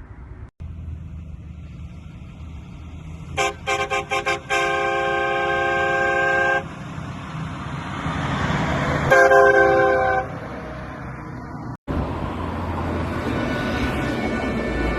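Air train horn fitted to a road vehicle, sounding a chord of several tones: a quick run of about five short blasts, then a long blast of about two seconds, and a second blast of about a second a few seconds later, over vehicle rumble.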